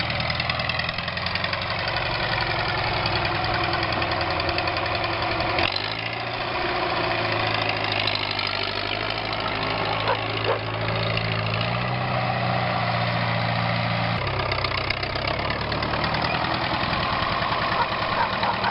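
Valmet farm tractor's diesel engine running steadily, its pitch shifting about six seconds in and again at about fourteen seconds.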